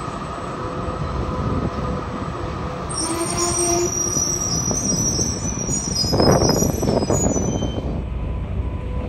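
Articulated B2-class tram moving off and passing close by, its steel wheels squealing high-pitched from about three seconds in until near the end. A louder rumble of wheels on the rails comes about six seconds in.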